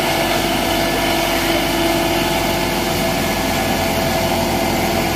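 Kubota combine harvester's diesel engine running steadily under load as its rubber tracks churn in deep mud, unable to climb the steep bank.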